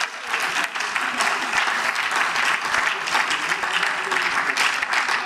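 Parliamentary applause: many members clapping together in a steady patter, easing off near the end.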